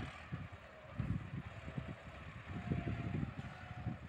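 Massey Ferguson tractor's diesel engine labouring as it hauls a loaded trolley up a sandy track, with a faint steady whine. Gusts of wind buffet the microphone.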